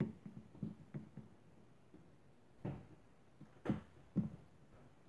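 Handling sounds of bread rolls and a table knife on a wooden cutting board while the rolls are split and buttered: a quick run of light taps at the start, then three louder knocks about a second apart.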